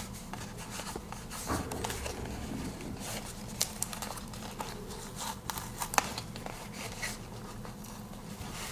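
Soft rustling and scattered small clicks as adhesive tape and a damaged cardboard-and-plastic package are handled, the package being taped back together.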